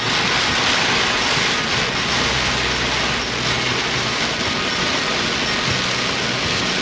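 Steady road and wind noise of a moving vehicle, a loud even hiss with a low engine hum beneath.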